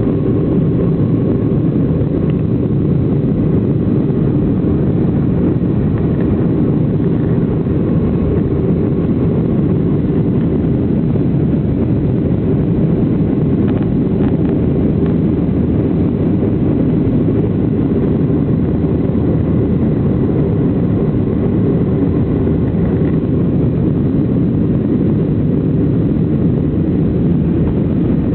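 Steady cabin drone of a Boeing 757-200 airliner in flight, its jet engines and airflow heard from inside the cabin as an even, low rumble.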